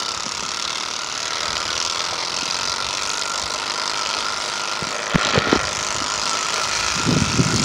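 Playing cards clipped to a bicycle wheel flapping against the spokes as the bike rolls, a steady motor-like buzz that sounds like a dirt bike. A few knocks about five seconds in.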